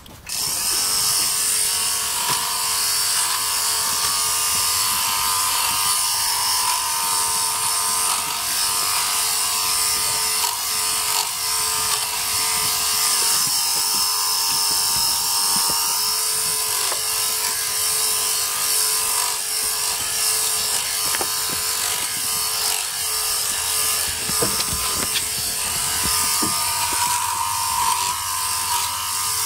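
Handypiece Pro battery-powered portable sheep clipper switching on just after the start, then running steadily as its cutter and comb clip dirty wool from a sheep's rear end.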